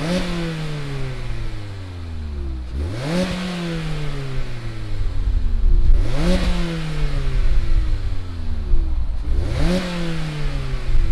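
2019 Mazda MX-5 Miata's 2.0-litre inline-four revved four times from idle. Each rev climbs quickly and then sinks slowly back down over about three seconds.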